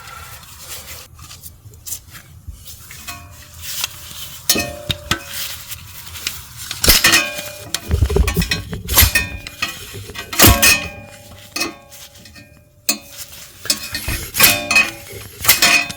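Metal hand tools clinking, knocking and scraping against the transmission while a tight half-shaft oil seal is worked out of its bore. There are many sharp clanks, some with a brief metallic ring, and a heavier thud about eight seconds in.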